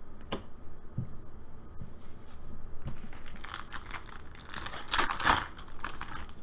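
Foil wrapper of a 2020 Panini Elite Extra Edition baseball card pack crinkling as it is torn open by hand, starting about three seconds in and loudest around five seconds, after a few soft knocks of handling.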